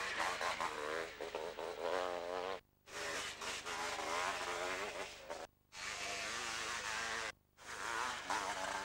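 500cc two-stroke motocross bikes revving hard on the track, their engine pitch rising and falling as they pass. The sound cuts out abruptly three times for a moment at splices in the film.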